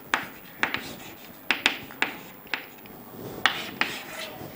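Chalk writing on a chalkboard: a string of sharp, irregular taps and short scratchy strokes as a word is written and underlined.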